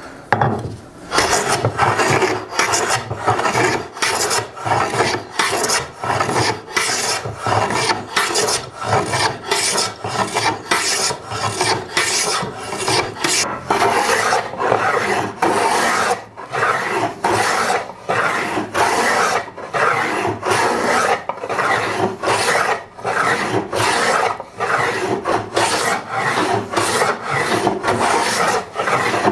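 Hand tool working wood in steady, repeated scraping strokes, about two a second.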